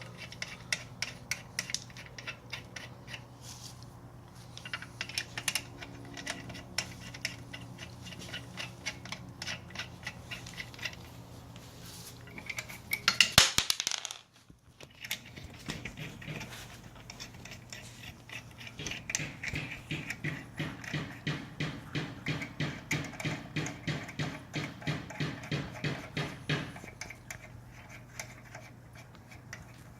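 Steel lug nuts being spun onto wheel studs by hand, finger tight: a run of quick metallic clicks and ticks. A louder flurry of clicking comes about 13 seconds in, and later a steady rhythm of about three ticks a second.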